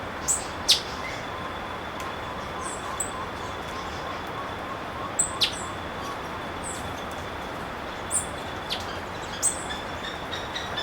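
Scattered short, sharp bird chirps, each a quick downward-sweeping note, in pairs and singles, the loudest about a second in, over a steady background hiss.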